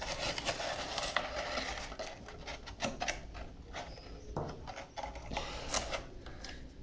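Crinkling and rustling of a thin, clear plastic bottle, with scattered clicks and taps, as an inkjet cartridge is pulled out of it and set down.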